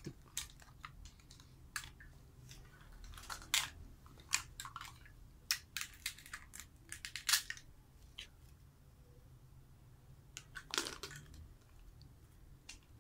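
Plastic toy play-food pieces clicking, tapping and scraping as they are handled and fitted together, in scattered short clicks with a longer, louder scrape near the end.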